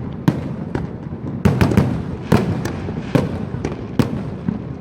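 Fireworks display: sharp bangs of bursting shells about two a second at uneven spacing, over a continuous rumble of further bursts.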